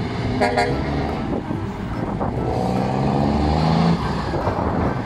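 Truck engine running steadily, with a brief horn-like toot about half a second in.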